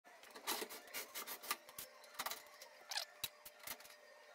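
Faint, irregular light clicks and rubbing from a gloved hand handling the dryer's back panel.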